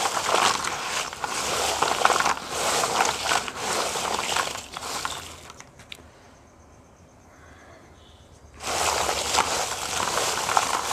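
Crisp fried besan-and-maida nacho chips being tossed by hand in a plastic tub to coat them with spice powder: a dense rustling crunch. It stops for about three seconds in the middle, then starts again.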